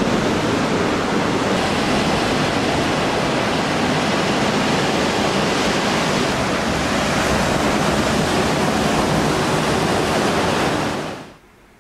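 Ocean surf washing against a sea rock and concrete breakwater blocks: a steady, even rush of water noise that fades out near the end.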